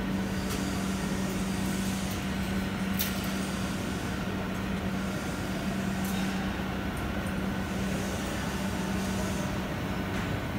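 Steady factory machinery noise with a constant low hum and a faint high tone, broken by a few brief sharp sounds.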